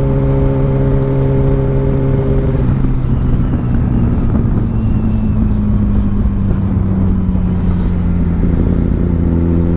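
Kawasaki ZX-10R's inline-four engine running at steady revs. About two and a half seconds in its note drops to a lower pitch and holds there.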